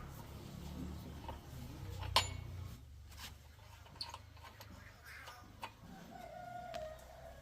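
Scattered sharp metal clicks and taps over a steady low hum, the loudest click about two seconds in, with a chicken clucking briefly near the end.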